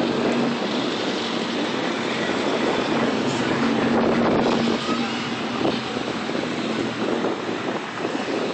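Steady rush of wind on the microphone while riding a bicycle, mixed with street traffic; a passing car makes it loudest about four seconds in.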